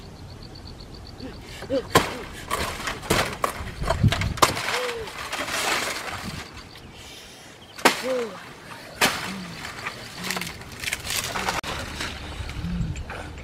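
Machete chopping and slashing into dry palm fronds and stems: a series of sharp cracks, several seconds apart, with crackling and rustling of dry leaves between them.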